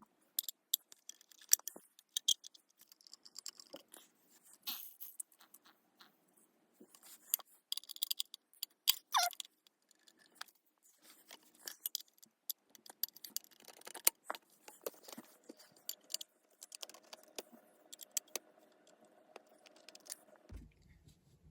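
Screws being backed out of the cast motor cover of a Sterling F-2 siren: scattered small metallic clicks, clinks and scrapes of tool and screws on metal.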